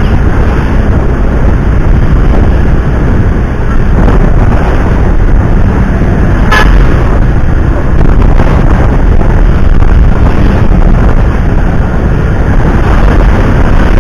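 Loud, steady rumble of road traffic, with one short horn toot about six and a half seconds in.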